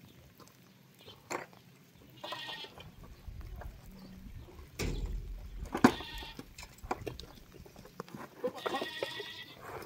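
Bleating from the family's small livestock: three wavering bleats a few seconds apart, with scattered knocks, the loudest a sharp one about six seconds in.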